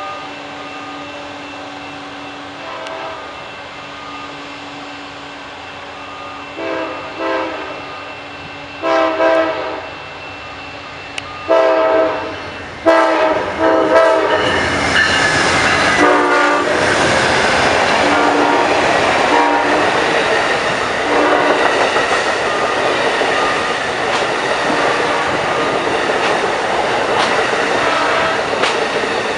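Amtrak GE P42 Genesis diesel locomotive blowing its horn in about five separate blasts, each louder than the last as it nears the grade crossing and the track workers. From about halfway in, the train passes close by: a loud, steady rush of the engine and wheels on the rails.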